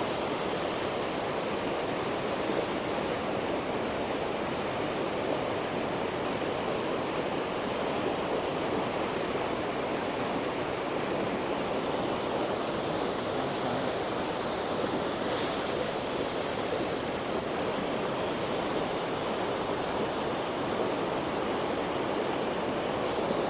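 Waterfall with a heavy flow of water rushing down, a steady, unbroken rush.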